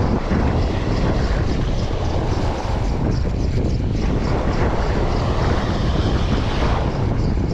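Small boat's motor running steadily, with wind buffeting the microphone and a faint ticking about four times a second.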